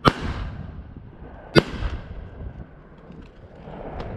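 Two shotgun shots about a second and a half apart, each trailing off in a short echo, fired at ducks flying over the decoys.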